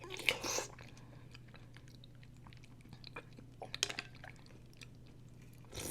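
Close-miked eating of chè ba màu, a Vietnamese three-color dessert of grass jelly, mung bean and red bean: soft chewing, with a few short louder mouth and spoon sounds near the start, about four seconds in, and at the end.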